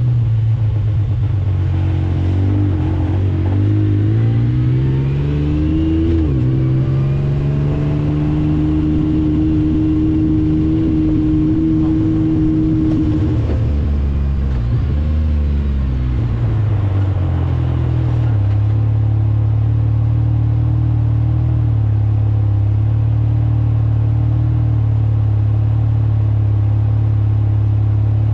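Yamaha YXZ three-cylinder engine heard from inside the cab, revving up with rising pitch and dropping sharply about six seconds in as it shifts up. It holds a steady pitch, falls away for a couple of seconds in the middle as it slows, then runs steady through the last ten seconds.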